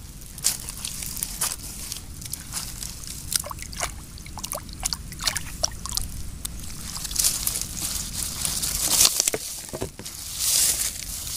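A hand sloshing and scooping water in a shallow muddy pool, with wet mud squelching and many small splashes and clicks. A louder splash and rush of water comes near the end.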